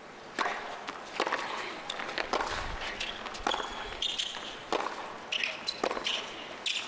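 Tennis rally on a hard court: a serve about half a second in, then rackets striking the ball and the ball bouncing, a sharp pop about every half to three-quarters of a second.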